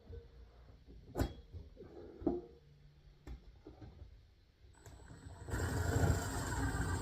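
A few sharp clicks, then an electric motor starts about five seconds in and runs steadily, with a high whine over a steady rush.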